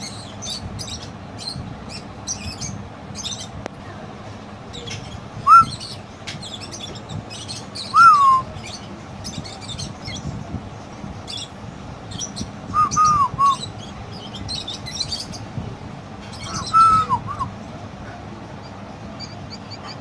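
Caged budgerigars chattering: a steady stream of quick, high chirps and clicks, broken four times by a louder short whistled note that rises and falls.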